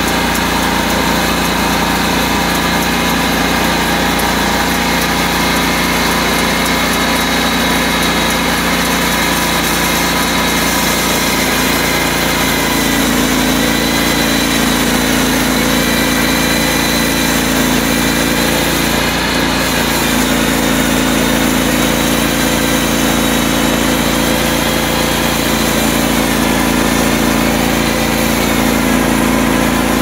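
Huike HKS31G portable bandsaw mill's gasoline engine running steadily under load as the band blade is pushed through a log. The engine note wavers and shifts partway through as the load on the blade changes.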